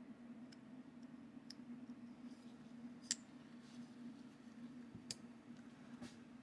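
A few sharp, separate clicks from a freshly reassembled Gil-Tek KT button-lock folding knife being worked in the hand, the loudest about three seconds in, over a low steady hum.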